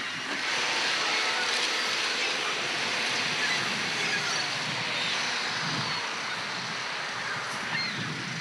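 A large flock of gulls calling at once, a steady dense wash of many overlapping cries.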